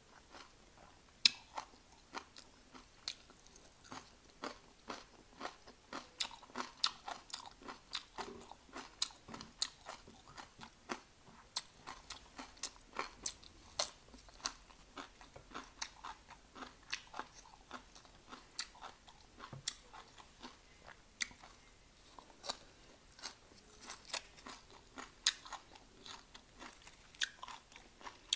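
Close-up crunching and chewing of crisp raw vegetables such as cucumber and celery: a steady run of sharp, irregular bites and crunches, a few a second, with one louder crack about a second in.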